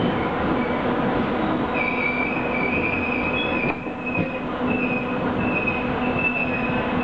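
Passenger train running along the rails, heard from inside the carriage, with a steady rumbling noise; from about two seconds in a high, wavering wheel squeal sets in and keeps on.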